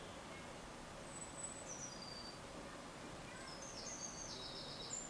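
Faint birdsong over a steady background hiss: a few scattered high chirps, then a rapid trilled phrase near the end.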